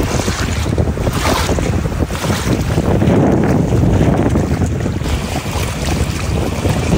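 Strong gusty wind rushing across the microphone, with wind-driven waves washing onto a stony pond shore beneath it.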